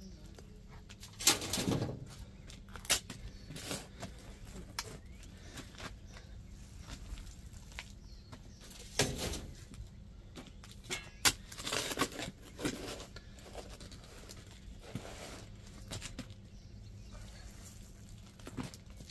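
Round-point shovel digging in soil: the blade stabbing and scraping into the dirt and shovelfuls of earth being dropped, in irregular strokes a second or several apart, the loudest about a second in.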